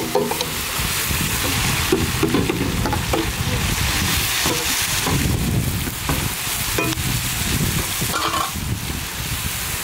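Onions and freshly added garlic paste frying in hot oil in a large steel pan, sizzling steadily, while a long-handled metal spatula stirs and scrapes against the pan with short scraping clicks.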